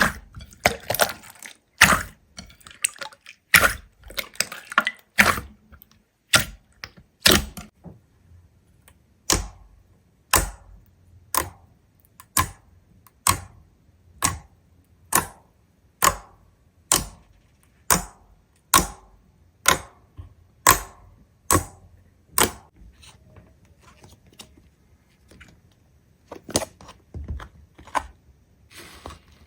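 A series of short, sharp, crisp clicks, irregular and close together in the first few seconds, then settling into an even rhythm of about one a second.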